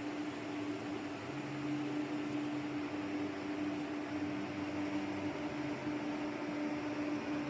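1800 A welding machine running with a steady electrical hum over a constant hiss.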